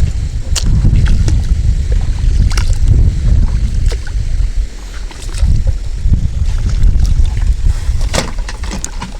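Strong wind buffeting the microphone: a loud, gusting low rumble, with a few scattered sharp clicks.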